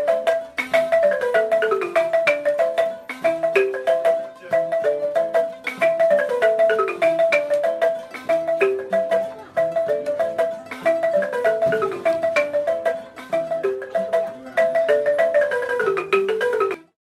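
Instrumental background music of quick struck, pitched notes: a repeating pattern with falling runs of notes, which cuts off abruptly near the end.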